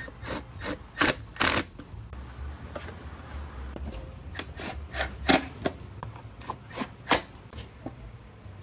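Irregular clicks, knocks and light clatter of plastic motorcycle fairing parts and hand tools being handled during fairing installation.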